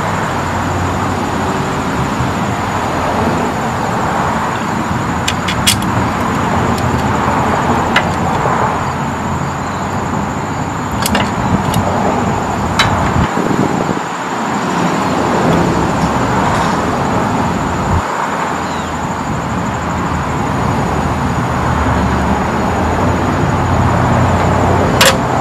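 Briggs & Stratton single-cylinder engine on a Craftsman tiller running steadily on a newly fitted replacement carburetor, with a few sharp clicks along the way.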